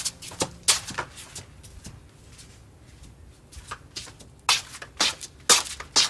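Scattered sharp knocks and clicks of someone moving about a room and handling objects: a few in the first second, then a quicker run of louder ones near the end.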